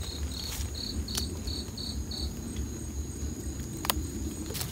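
An insect chirping, about seven short high-pitched chirps at roughly three a second, stopping a little after two seconds in, over a faint steady high drone. Low rustling and handling noise runs underneath, with a sharp click near the end.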